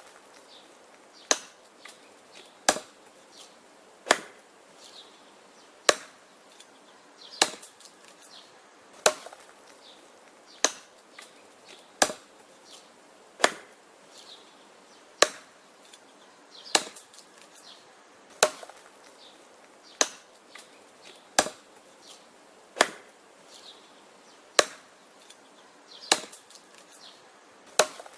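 Wood being chopped in a steady rhythm: about eighteen sharp chopping strikes, roughly one every second and a half, with small knocks of wood between the blows.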